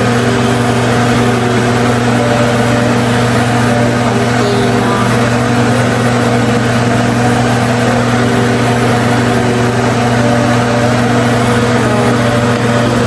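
A steady, unchanging machine hum with a constant hiss over it.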